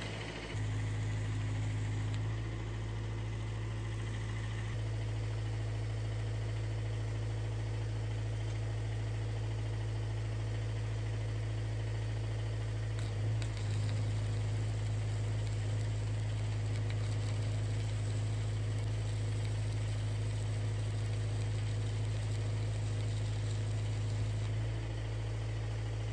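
Electric arc welding on steel: a steady electric hum from the welding machine throughout, with the hiss and crackle of the arc in two stretches, a short one of about a second and a half near the start and a long one of about eleven seconds from about halfway in.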